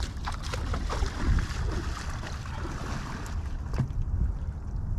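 Wind rumbling on the microphone over the splash and lap of shallow river water, with a few sharp clicks scattered through it.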